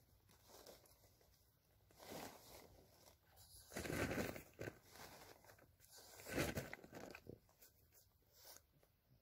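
Plastic poly tarp rustling and crinkling as it is handled and pulled along its top edge, in several uneven bursts, the loudest about four seconds in and again a couple of seconds later.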